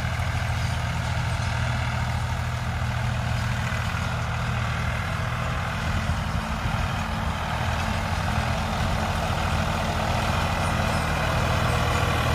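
Farmtrac 60 DX tractor's three-cylinder diesel engine running steadily at about 1800 rpm under load, pulling a disc harrow in first gear. It grows slightly louder near the end as the tractor comes closer.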